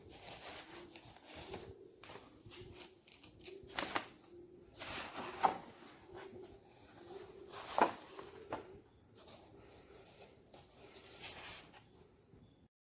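Irregular footsteps and knocks on a debris-strewn floor, the loudest about four, five and a half and eight seconds in, with pigeons cooing softly throughout.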